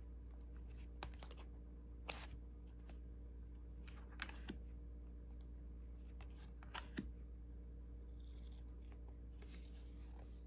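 Oracle cards being handled and slid one by one through a deck: short snaps of card edges every second or two, two of them close together, then a couple of longer soft sliding rustles near the end, over a faint low hum.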